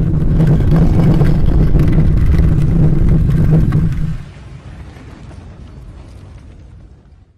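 Sound effect of a heavy stone tomb door being rolled open: a loud, deep grinding rumble for about four seconds, then a much quieter rumbling tail that stops just before the end.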